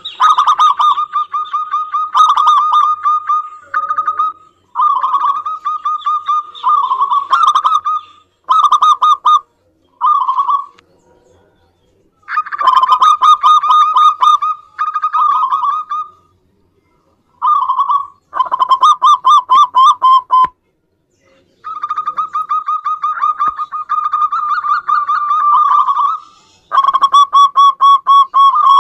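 Zebra doves (perkutut) cooing: about a dozen fast-pulsed, trilling phrases, each one to four seconds long, repeated with short pauses between them.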